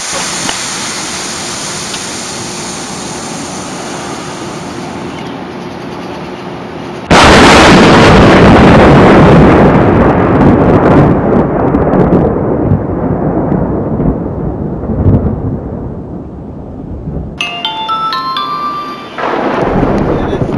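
A loud thunderclap about seven seconds in, rumbling and slowly fading over several seconds, after a steady hiss. Near the end comes a short run of bright chiming notes.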